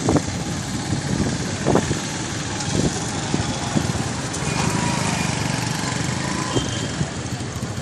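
Street traffic noise, with small motorcycle engines running close by and pulling away.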